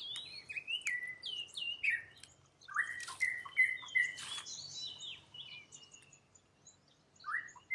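High-pitched chirping calls: many short notes gliding down or up, several overlapping. They come in quick runs, thin out about two-thirds of the way through, and one last call sounds near the end.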